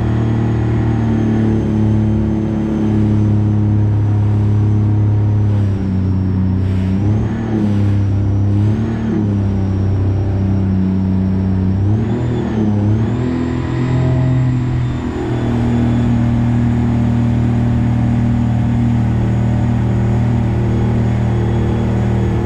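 Rotax 4-TEC 250 engine of a boat running steadily under way during its break-in, with a thin high whine over the engine note. The engine pitch wavers up and down a few times around the middle, dips briefly, then settles steady again.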